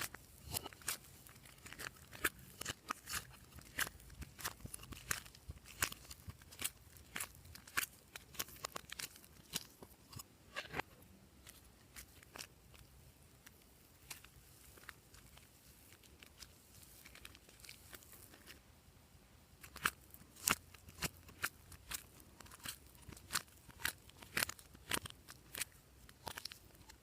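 Glossy slime being squished and stretched by hand, giving quick sticky clicks and pops. The clicks come thick and fast, thin out for several seconds about halfway through, then pick up again.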